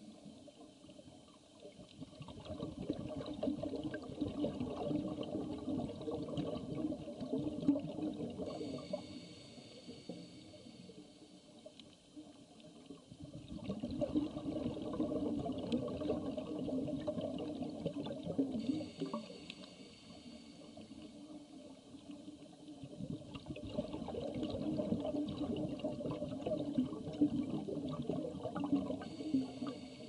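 A scuba diver breathing through a regulator underwater: three long bursts of bubbling exhaled air about ten seconds apart. Between them are quieter stretches with a faint hiss of inhaling.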